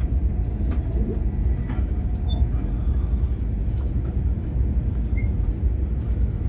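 Steady low rumble of an AVE high-speed train running at speed, heard from inside the passenger cabin.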